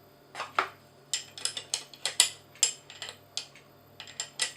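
A quick, irregular run of sharp metallic clicks and clinks, about fifteen of them, from tools and parts being handled on a chainsaw while its clutch is set up for tightening.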